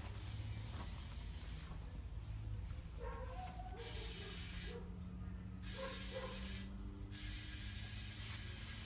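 Compressed air hissing from a tire inflator chuck into a car tire as it is topped up, in spurts with short breaks about two, five and seven seconds in.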